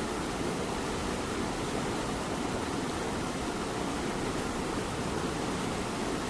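A cat purring close up over the steady hiss of light rain.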